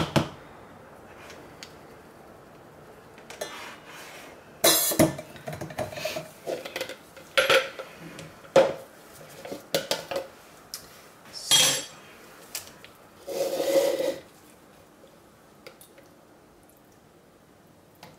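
Clinks, knocks and a scrape from soap-making utensils: a stick blender set down in a stainless steel jug and a metal spoon knocking against plastic containers. There are about six separate knocks in the first fourteen seconds, the longest a scrape of under a second.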